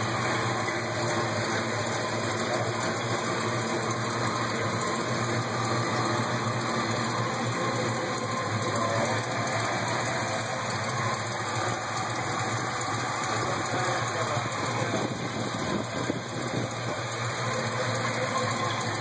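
Chevrolet El Camino SS's 396 big-block V8 idling steadily, heard close over the open engine bay.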